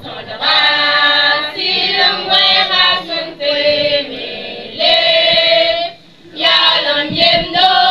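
A group of schoolchildren singing together unaccompanied, in held sung phrases with brief pauses for breath.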